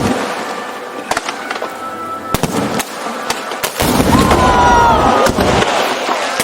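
Fireworks display: sharp bangs and crackling bursts of aerial shells, with music playing along. A louder, denser stretch of bursts comes about four seconds in.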